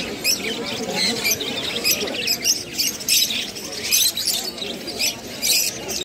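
A cage of Java sparrows chirping: many short, high chips in quick, irregular succession.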